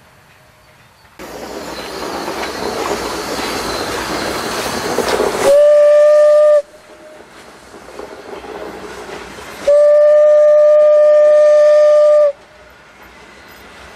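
Steam locomotive whistle blowing twice, a short blast and then a long one, a single steady tone, as a tank locomotive hauls a train of old passenger coaches past. Before the whistles the loud steam exhaust and running gear of the locomotive go by, and between them the coaches rumble past.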